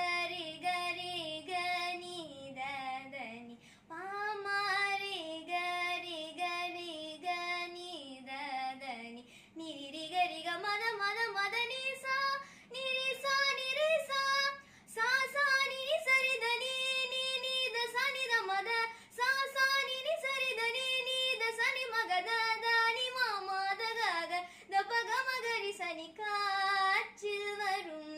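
A girl singing a Tamil song solo, in phrases broken by short pauses for breath, moving to a higher register about ten seconds in.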